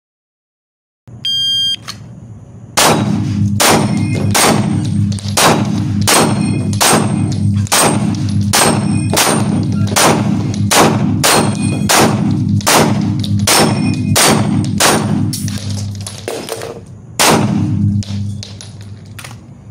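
A short electronic shot-timer beep, then a long string of rapid 9 mm pistol shots from a CZ P-10 SC, about two a second, echoing in an indoor range with steel targets clanging.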